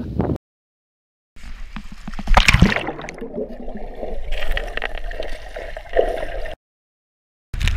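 Muffled underwater bubbling and sloshing heard from beneath the surface as swimmers exhale clouds of air bubbles, with a loud gurgling rush of bubbles about two seconds in. It sits between two short stretches of dead silence.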